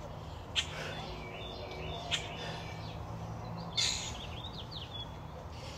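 Outdoor backyard ambience: a steady low hum with a few short, sharp birds' chirps, the clearest run of chirps about four seconds in.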